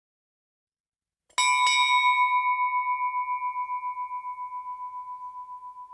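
A small bell struck once, ringing on with a steady pulsing waver as the tone slowly fades.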